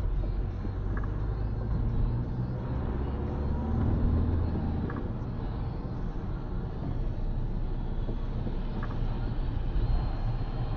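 Car interior noise: the engine running and tyres hissing on a wet road as the car picks up speed, heard through the dashcam's microphone inside the cabin.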